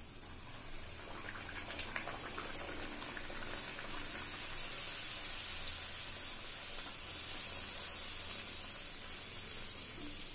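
Bhatura dough sizzling as it deep-fries in hot oil in a kadhai. The sizzle swells over the first few seconds after the dough goes in, with a few small crackles, and then holds steady as the bread puffs up.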